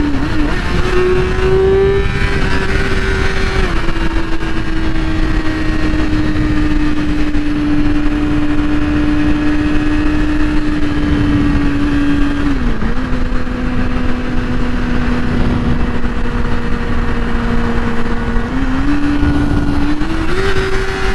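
A 2008 Yamaha R6's inline-four engine running at a steady high cruise, under heavy wind and road rush. Its pitch steps up about a second in, sinks slowly, drops lower about two-thirds of the way through, then climbs again near the end.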